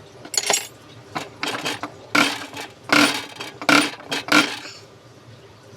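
Metal tools and small metal parts clinking and scraping during diesel fuel-injector work: a run of sharp clinks through the first four seconds or so, then it goes quieter.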